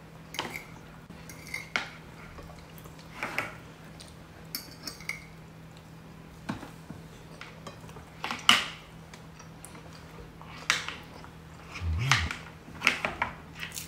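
Cutlery clinking and scraping on plates while eating: about a dozen light, irregular clicks, with a soft low thud near the end.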